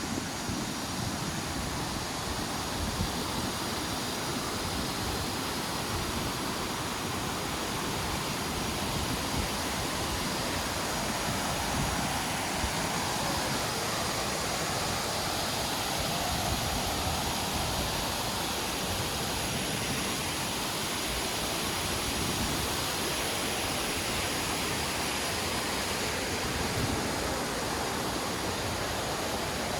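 Waterfall's steady rush of falling water, heard from close by.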